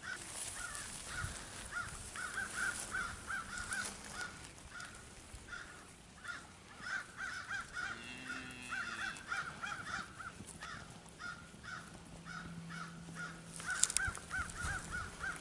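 Birds calling outdoors: runs of short, quickly repeated calls, with a faint low steady hum joining in about two-thirds of the way through.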